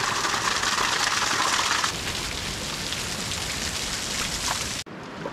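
Small waterfall spilling and splashing down a mossy rock face, a steady hiss of falling water. It eases a little about two seconds in and cuts off abruptly near the end.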